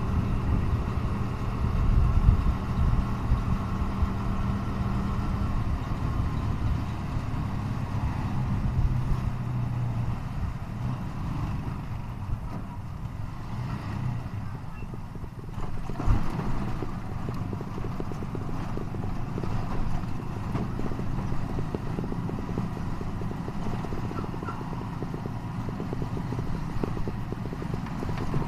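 Motorcycle engine running steadily as the bike rides along the road, with low rumble on the microphone. The engine hum is strongest in the first several seconds and fades somewhat after that.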